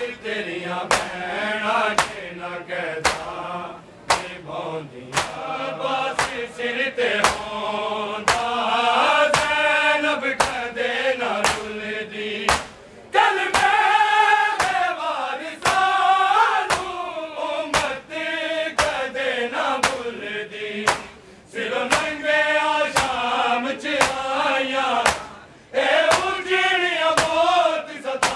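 A noha chanted by men in unison behind a lead voice, over a steady rhythm of sharp chest-beating (matam) slaps.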